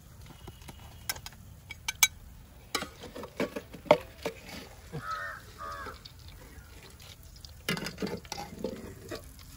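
Metal spatula scraping and clinking against a steel pot of frying oil as broken pieces of fried fish are scooped out onto a steel plate, in an uneven string of sharp clicks and scrapes.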